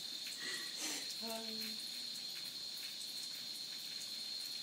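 Thin stream of water running from a bathtub tap, a quiet steady trickle with a steady high-pitched whine over it. A brief low-pitched sound about a second in.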